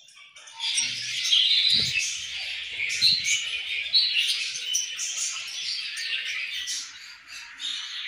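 A colony of budgerigars chattering and chirping together: a dense, continuous mix of many short, high warbling calls that starts about half a second in.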